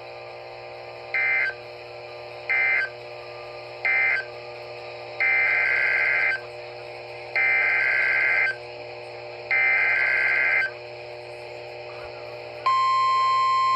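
Emergency Alert System data tones from a NOAA Weather Radio receiver: three short end-of-message bursts, then three longer SAME header bursts of warbling two-tone data. Near the end the steady 1050 Hz weather radio warning alarm tone starts, announcing a new warning.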